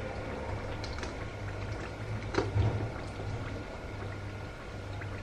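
Eggs frying in a pan, a soft steady sizzle over a low hum, with a few small clicks as a knife notches a wurstel.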